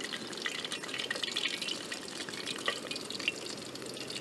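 An empanada frying in hot oil in a steel pan, the oil sizzling steadily with many small crackles and pops.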